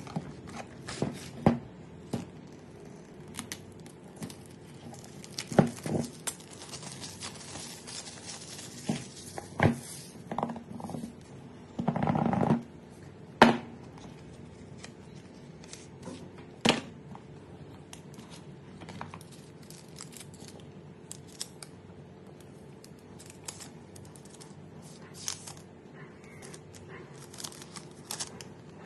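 Cardboard phone packaging being handled: box flaps, the retail box and its inner tray scrape, rustle and knock, with scattered sharp taps and clicks. Midway there is a half-second sliding scrape, and the rustling grows quieter near the end.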